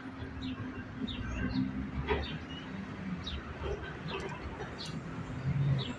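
Small birds chirping: a run of short, quick chirps, several a second at times, over a low steady hum of city traffic.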